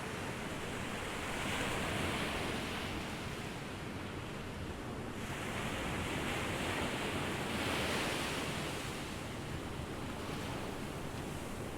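Ocean waves breaking and washing up a beach: a continuous rush of surf that swells twice, about two seconds in and again about eight seconds in.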